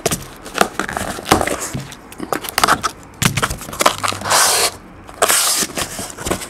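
A corrugated cardboard case and the boxes inside it being handled by hand: a string of knocks, taps and rustles, with two short scraping rushes in the second half as cardboard slides against cardboard.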